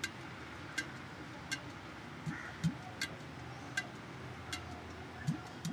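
Faint, evenly spaced ticking, about four ticks every three seconds, with a few short low falling tones mixed in.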